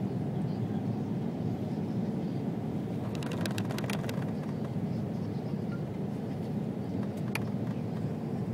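Steady low drone of an airliner in flight on its descent, heard inside the passenger cabin: engine and airflow noise at an even level. A few faint clicks come about three to four seconds in and once more near the end.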